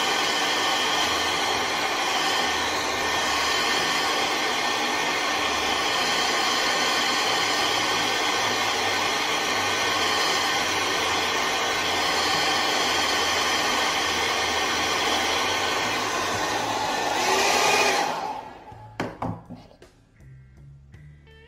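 Handheld hair dryer blowing steadily, drying wet watercolour paint on paper, then switched off about 18 seconds in and followed by a couple of knocks.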